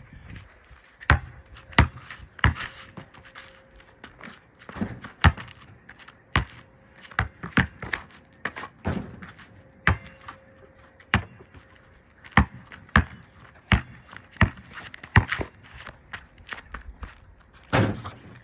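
Basketball bouncing repeatedly on a hard surface as it is dribbled, a sharp thud every half second to second, with a louder impact near the end.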